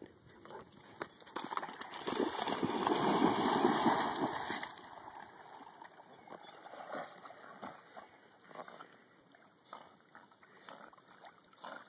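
A large dog plunging into a pond after a thrown stick, with a loud splashing rush for about three seconds. Then only faint scattered splashes as it swims.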